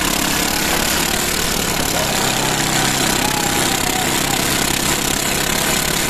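The homemade aircraft's small 16-horsepower petrol engines running steadily and loudly, spinning its wooden propellers.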